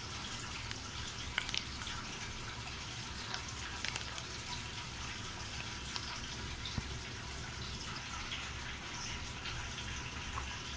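Steady hiss with a few faint light clicks, the handling and squeezing of a plastic sauce pouch over a glass bowl.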